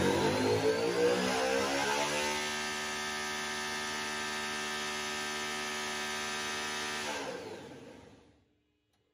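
Spintron rig motoring a Gen V LT V8 without combustion: it whines up in pitch for about two seconds, then holds at one steady high speed for about five seconds before fading away. This is a static hold test, keeping the engine at RPM to see whether the hydraulic-roller valve train stays stable.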